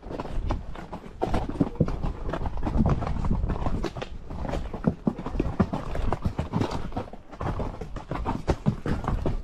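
Horse hooves clopping on the trail as a series of irregular sharp strikes, over a steady low rumble.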